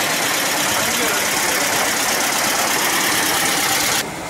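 Air-cooled Volkswagen Beetle flat-four engine idling at close range, a steady hissy running sound that cuts off suddenly near the end.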